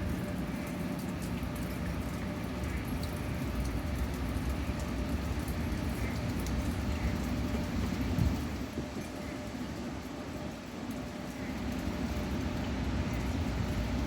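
A steady, low rushing or roaring sound from an unidentified distant source, with a low hum under it, that eases briefly about two-thirds through. A light drizzle of rain patters over it.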